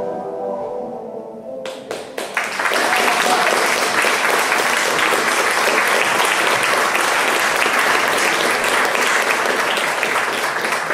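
The last notes of the band's song ring out and fade, then an audience bursts into applause about two seconds in and keeps clapping steadily.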